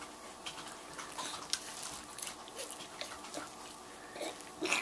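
Toddlers eating spaghetti with their fingers: small scattered clicks and mouth smacks, with a brief louder noise near the end.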